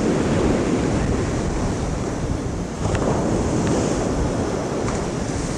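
Wind buffeting the microphone over a steady rush of waves breaking on a shingle beach.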